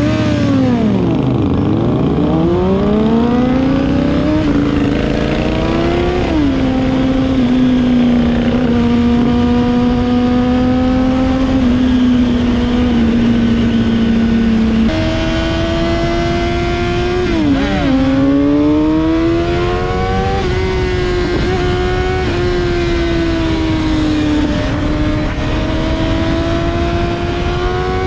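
Honda CBR600RR inline-four motorcycle engine pulling away and accelerating, its pitch climbing and stepping down at each gear change, then holding fairly steady revs at cruising speed. Wind rushes past throughout.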